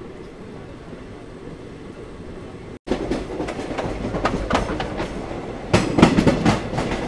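ICF passenger coach running on the track: a low rumble that breaks off about three seconds in and returns louder, with the repeated 'kat kat' clatter of the wheels over rail joints.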